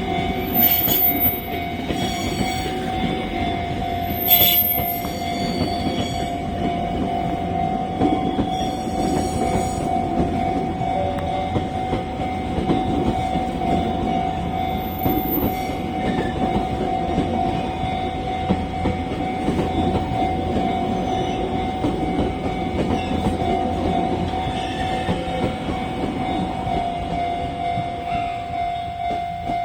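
JR 383 series electric train running past over a level crossing, with steady wheel and running noise on the rails and a few short high squeals in the first half. The crossing's warning bell rings throughout as one steady tone, its repeated pulses plainer near the end as the train noise eases.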